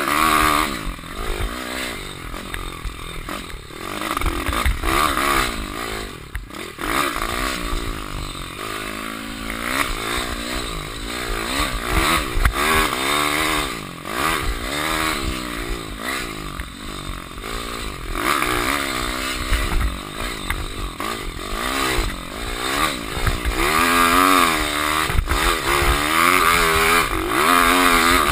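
Pit bike's 150 cc single-cylinder four-stroke engine being ridden hard, its pitch rising and falling over and over as the throttle is opened and shut through the corners, heard from a helmet-mounted camera.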